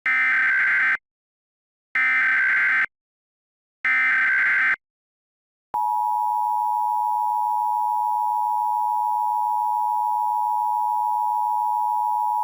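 Emergency Alert System SAME header: three one-second bursts of digital data tones, each about a second apart. About six seconds in, the steady EAS attention tone begins and holds unbroken, marking the start of a new alert.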